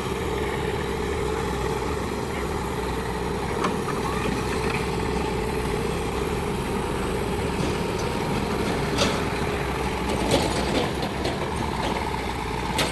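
Diesel engine of heavy machinery running steadily, with a few short, sharp knocks about 4, 9 and 10 seconds in.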